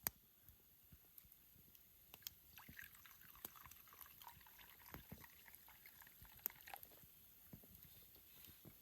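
Near silence with sparse faint crackles and pops from a wood campfire, and a soft trickling, liquid sound in the middle stretch.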